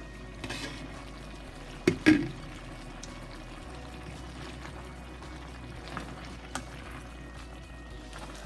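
Pork and vegetables simmering in a stainless-steel pan, a steady bubbling hiss. A glass lid knocks against the pan twice about two seconds in, with a few lighter clicks later.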